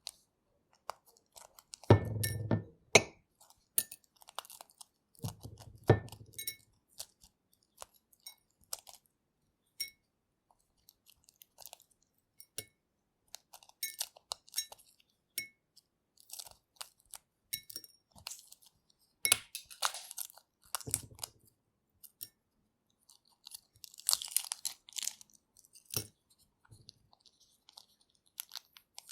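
Boiled egg shells cracking and being peeled off by hand: irregular small crackles and clicks, with two duller, heavier knocks near the start and denser crackling bursts later on.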